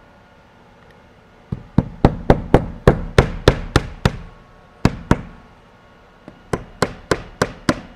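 Claw hammer driving nails to fasten a cellular PVC siding panel. The blows come in quick runs of about four a second: a run of roughly ten strikes, a pause with two more, then a last run of about six near the end.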